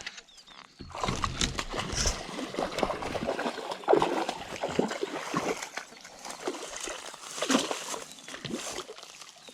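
Hooked bass splashing and thrashing at the water's surface: irregular splashes and sloshing, loudest about four seconds in and again near seven and a half seconds.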